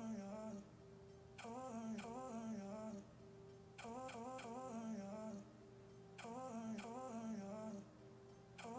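Quiet background music: a short wavering melodic phrase with a few light percussive hits, repeating about every two and a half seconds over a steady held note.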